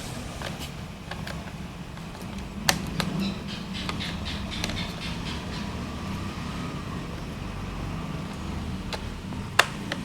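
Small screwdriver turning screws into a laptop's plastic bottom panel: light clicks and ticks of metal on screw and plastic, with a sharp click under three seconds in and another near the end, over a steady low hum.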